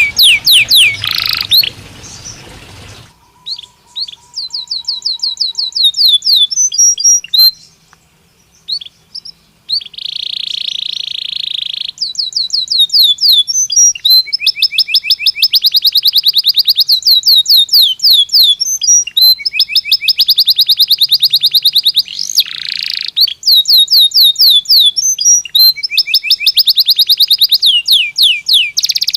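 Belgian canary singing: long trills of rapidly repeated high notes, broken by a harsh buzzy phrase about ten seconds in and another near the end, with short pauses between phrases.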